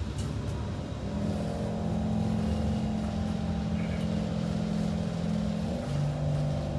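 Kawasaki C151 electric train running under traction power: from about a second in, steady electronic whine tones from the traction inverter and motors sound over the rumble of the car. Near the end the tones step to a different, lower set of pitches, the inverter changing mode as the train gathers speed.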